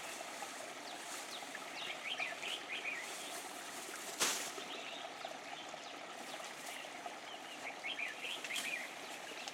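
Birds chirping faintly, with quick twittering notes in two short spells, over a quiet outdoor background hiss. A single sharp click about four seconds in.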